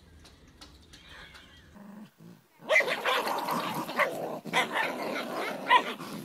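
Two small dogs growling and barking while they play tug-of-war over a toy, loud and continuous from about two and a half seconds in, after a quiet opening.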